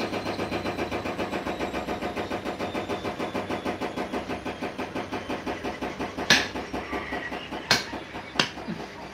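A small engine or machine runs with a rapid, even pulse of about eight beats a second, fading over the last few seconds. A few sharp clinks come near the end.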